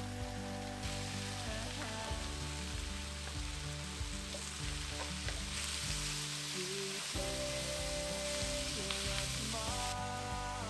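Ground meat and chopped onion sizzling in a stainless steel frying pan, stirred with a wooden spoon; the sizzle gets louder about halfway through. Soft background music plays underneath.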